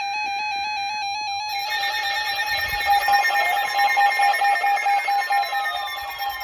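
Emergency Alert System alert tone: a steady, harsh electronic alarm tone. It warbles at first and thickens into a dense steady tone about a second and a half in, with tones gliding slowly downward in the second half.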